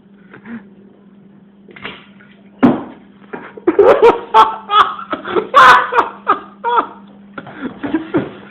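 Loud, hard laughing in repeated bursts, starting about two and a half seconds in after a quieter stretch with a faint steady low hum.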